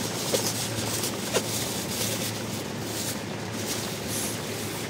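Steady rush of flowing river water, with two short falling chirps about a third of a second and a second and a half in.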